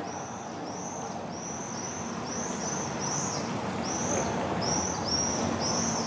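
Small birds chirping: a string of short, high chirps, about two a second, some overlapping, over a low, steady hum of street noise.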